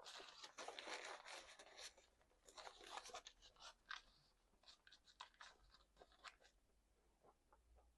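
Faint eating sounds: crunchy chewing for the first couple of seconds and again briefly about three seconds in, then scattered small mouth clicks.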